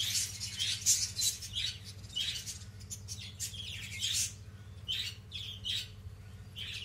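Pet budgerigars chirping and squawking in short, sharp calls, about two a second.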